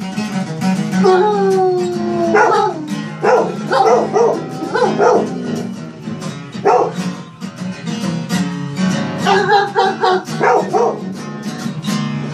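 A dog howling along to guitar music: a series of long howls that glide up and down in pitch over the steady playing of a guitar.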